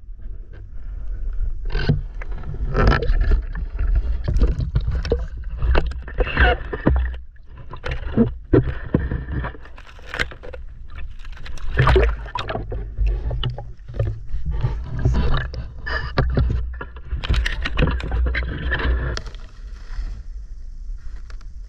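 Water splashing and gurgling in irregular bursts over a low rumble, as of movement through a shallow creek. A steady high hiss comes in near the end.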